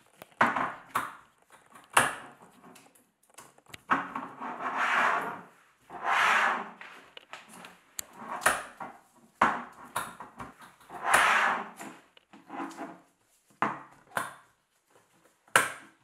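Irregular sharp clicks and knocks alternating with short scraping, rubbing sounds.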